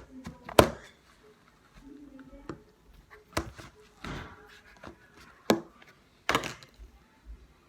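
Bubbly shaving-cream slime being squeezed and stretched by hand, giving several sharp pops and clicks as trapped air bursts, with a softer squelch between them.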